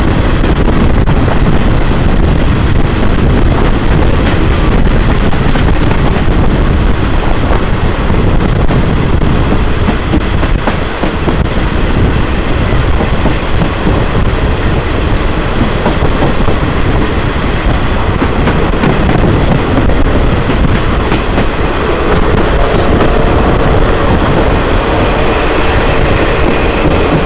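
Passenger train running along the track: a loud, steady rumble and rail clatter. A faint steady whine joins the noise near the end.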